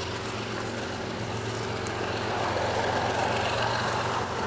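Steady engine drone with a low hum under a broad rush of noise, which swells somewhat about halfway through.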